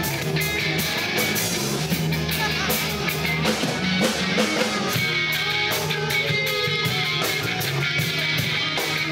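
Loud rock music from a drum kit and electric guitar, with cymbal crashes and held guitar notes throughout.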